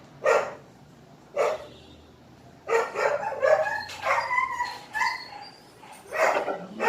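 A dog barking: two short barks about a second apart, then a run of wavering, higher-pitched calls.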